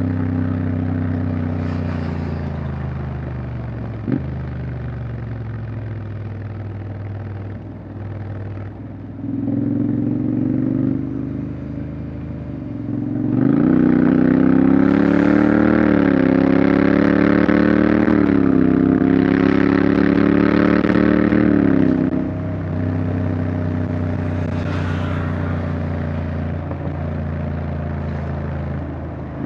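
Honda X-ADV 750's parallel-twin engine and exhaust under way, the engine note falling at first, then climbing as the throttle opens, running loud and high for about eight seconds in the middle with small rises and falls, then easing back to a lower cruise.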